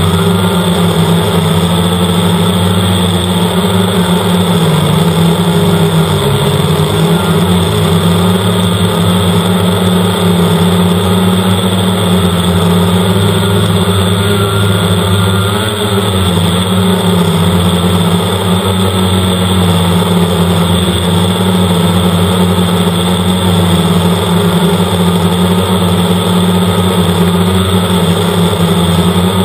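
Quadcopter's electric motors and propellers buzzing steadily, heard close up from the camera mounted on the craft. The hum wavers slightly in pitch as the craft manoeuvres.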